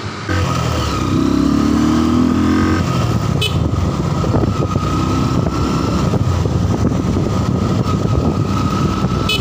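Honda Verza 150's single-cylinder four-stroke engine running while the motorcycle is ridden through city traffic, with road and wind noise. A short click comes about three and a half seconds in.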